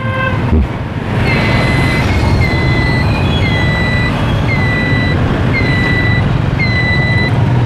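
Steady street traffic and engine noise heard while riding along a city street. A short, high, slightly falling tone repeats about once a second over it.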